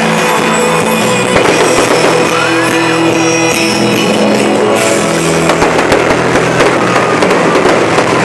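Fireworks bursting and crackling in quick succession over loud show music with sustained notes, the music of a pyromusical display played through outdoor loudspeakers.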